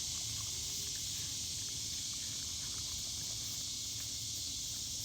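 Steady evening chorus of crickets, an even high-pitched chirring that does not let up.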